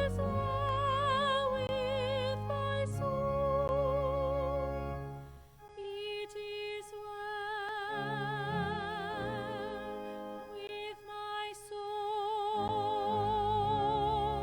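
A high solo voice sings long notes with wide vibrato over sustained low accompaniment, with a short break between phrases about five seconds in.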